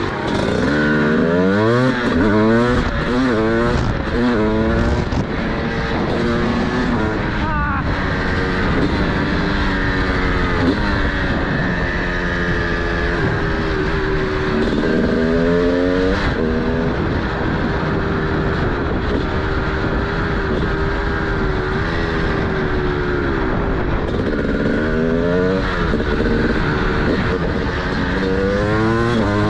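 TM SMR 300 supermoto's single-cylinder two-stroke engine with a DBR exhaust, accelerating hard. Its pitch climbs and drops back again and again at the gear changes. It holds a steadier note in the middle, then revs up again near the end.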